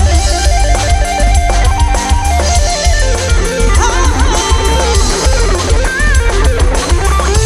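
Live band music, loud: drums and a heavy bass beat under a melodic lead line. A quick repeated-note figure opens the passage and gives way to gliding, bending melody notes.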